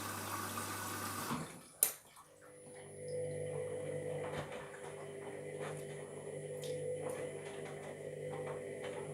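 Washing machine filling with water; the inflow stops about a second and a half in, followed by a single sharp click. About a second later the drum motor starts up with a steady hum as the drum begins to turn, with light ticks over it; no distinct grinding stands out.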